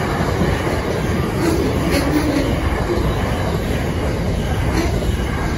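Container wagons of a freight train rolling past: a steady, loud rumble of wheels on rail. A few brief, faint high squeaks sound about two seconds in and again near the end.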